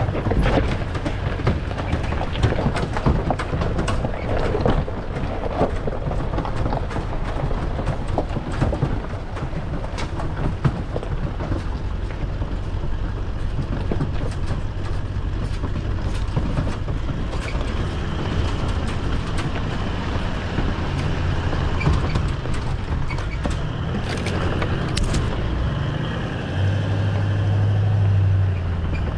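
Toyota LandCruiser 200 Series crawling down a steep, rocky 4WD track with a boat trailer in tow: the engine runs low and steady under scattered knocks and rattles from rocks, suspension and trailer, thickest in the first ten seconds. The engine note grows stronger for a couple of seconds near the end.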